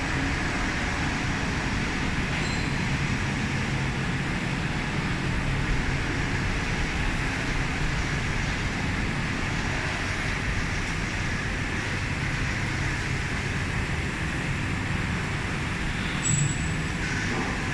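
Steady hum and hiss of machine-shop equipment running, an even mechanical rumble that holds at one level throughout.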